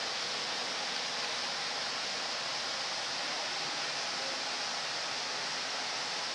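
A steady, even hiss with no distinct knocks or voices.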